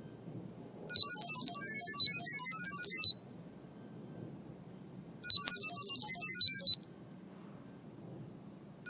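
Smartphone speaker playing rapid sequences of high-pitched beeping tones that hop quickly from pitch to pitch, in two bursts of about two seconds and a second and a half. This is a Wi-Fi camera app sending the network password to the camera as sound for pairing.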